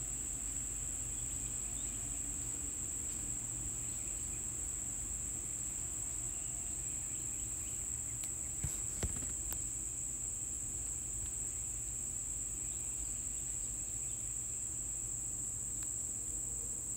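A steady high-pitched whine, with a few soft clicks a little under halfway through.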